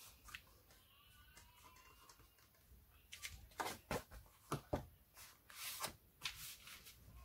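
Hands handling and pressing down sheets of cardstock: a string of light taps and knocks of card on the table from about three seconds in, then a hand rubbing across the paper to smooth it flat near the end.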